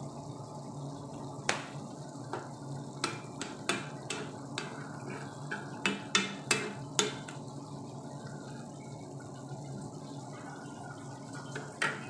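Metal spoon clinking and scraping against a nonstick frying pan while stirring chayote, tomato and onion, about a dozen quick clinks over a few seconds, then one more near the end. Underneath, the dish simmers steadily in its little water.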